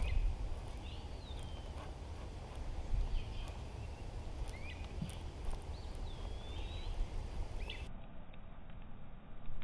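Low rumble of wind buffeting the microphone, with a few short, swooping bird chirps scattered through it.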